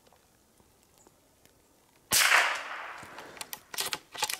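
A single shot from a CZ 455 .22 LR bolt-action rifle about two seconds in: a sudden sharp crack that rings out for about a second. It is followed near the end by a quick run of short sharp clattering sounds.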